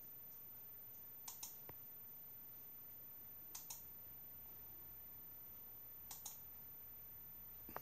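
Computer mouse button clicked three times, each click a quick press-and-release pair of light ticks, about two and a half seconds apart, with a single sharper tick near the end.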